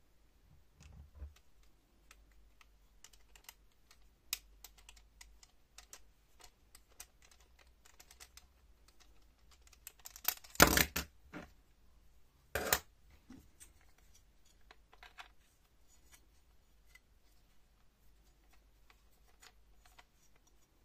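Scattered light plastic clicks and taps from a laser level and its mounting base being handled and taken apart. There is a louder clatter of knocks about halfway through, followed a couple of seconds later by a single sharper knock.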